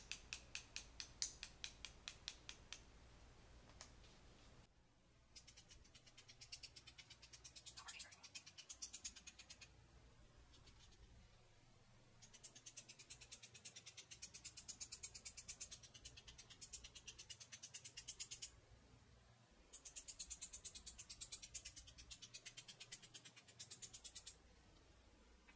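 Faint, rapid, even tapping of a paint-loaded brush against a second brush, spattering white acrylic paint onto a canvas. The tapping comes in several runs of a few seconds each, with short pauses between.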